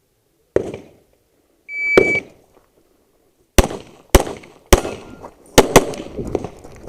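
Electronic shot timer gives its start beep, a short high tone, and about a second and a half later a string of handgun shots rings out, several loud cracks with some fired in quick pairs.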